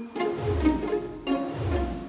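Background music played by string instruments, with short notes over a low note that slides down about every 0.8 seconds.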